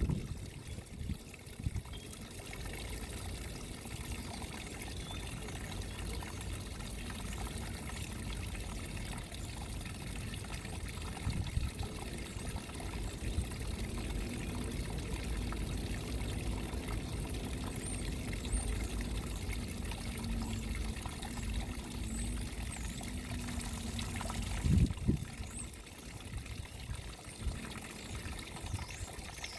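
Small garden rock waterfall: a thin stream of water trickling and splashing steadily over stones into a shallow pool. A brief low rumble comes near the end, and a few faint high chirps come and go.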